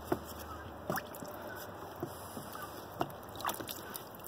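Water sloshing in a bucket, with a few light splashes and drips, as a deer skull is dipped through a film of spray paint floating on the surface.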